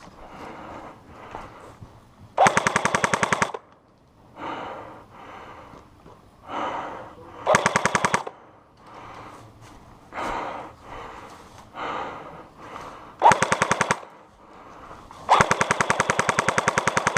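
Airsoft rifle firing four short bursts of rapid automatic fire, each a fast, even string of sharp cracks, the last and longest starting near the end.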